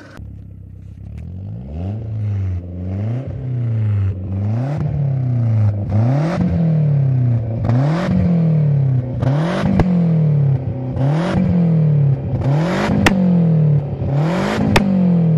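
Fiat Coupé engine revved in a run of repeated blips, pitch rising and falling about every second and a half, the revs climbing higher toward the end. Two sharp cracks sound near the end.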